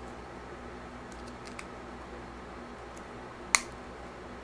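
A few light ticks and then a single sharp click about three and a half seconds in, over a faint steady hum. The clicks come from a hex driver and screws being worked on a stepper-motor mounting plate as its screws are loosened.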